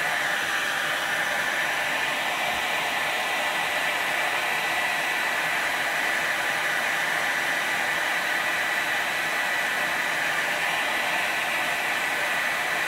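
Electric heat gun set to 300 degrees blowing steadily, a constant rushing hiss with a faint high whine, as it shrinks glue-lined heat-shrink tubing over the end of an antenna wire.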